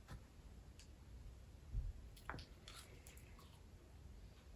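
Faint chewing, with a few small clicks and crackles, of someone biting into a dried seed, over a low room hum.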